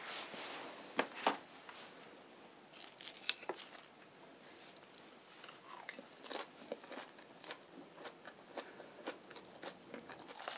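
Someone biting into and chewing crisp fresh salad leaves. There are a few sharp crunches in the first few seconds, then steady crunchy chewing at about three bites a second.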